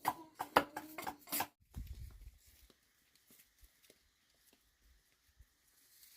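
Quick run of sharp taps and knocks from hand work on wooden bicycle parts, several a second, stopping abruptly about a second and a half in; after that only a brief low rumble and faint scattered ticks.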